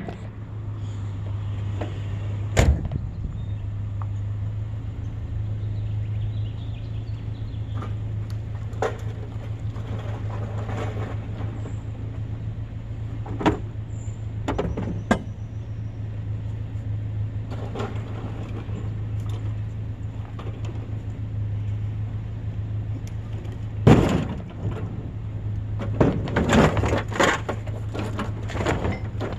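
A vehicle engine running with a steady low hum, with several single knocks and a burst of clattering near the end.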